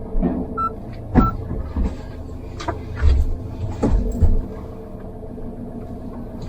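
Mahindra Thar's warmed-up engine running steadily, with two short electronic beeps about half a second and a second in and several sharp clicks and knocks over the next few seconds as the vehicle is readied to move off.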